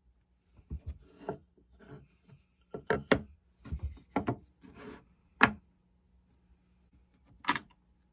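Wooden cutting boards being set down and slid on a wooden workbench top: a string of knocks and rubbing scrapes, the loudest about five and a half seconds in, then one more short clatter near the end.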